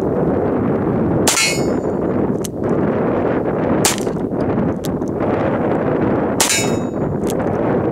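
Taurus ultralight snub-nose .38 Special revolver fired three times, about two and a half seconds apart, each shot followed about a second later by a fainter sharp crack, over a steady rushing background noise.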